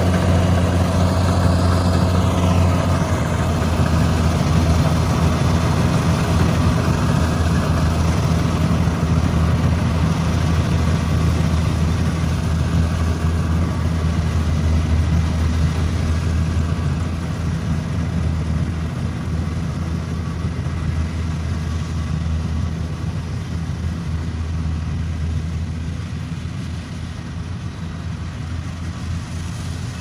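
Kubota DC-70 combine harvester's diesel engine running steadily at working speed as it cuts and threshes rice, a constant low hum that grows gradually fainter over the second half as the machine moves away.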